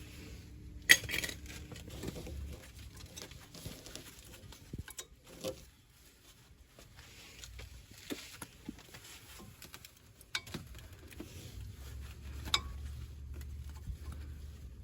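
Worn-out front brake pads being shimmied and pried out of a caliper bracket by hand: scattered light metallic clicks and scrapes, with a sharp click about a second in and another near the end.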